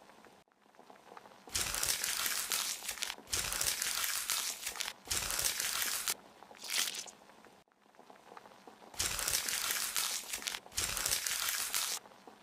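Dry crinkling, scraping noises in about five bursts of one to two seconds, with short quiet gaps between them. It is an ASMR sound effect set to a knife scraping bugs out of a wound.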